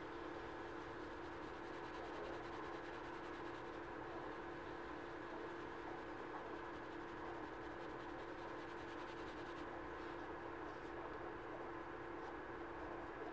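Steady room hum with a few constant tones, under the faint scrubbing and dabbing of a wool dauber spreading dye on a small leather key chain over paper towels.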